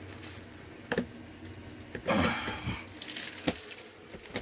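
Handling noise from an RV pleated roller shade being worked out of its mounting clip: a sharp click, then a brief scraping rattle a little after two seconds in, and another click near the end.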